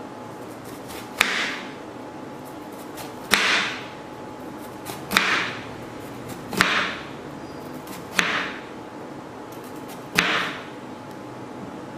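Chef's knife slicing crosswise through a bitter melon onto a plastic cutting board: six cuts, about one and a half to two seconds apart. Each is a sharp knock of the blade meeting the board, with a short fading hiss after it.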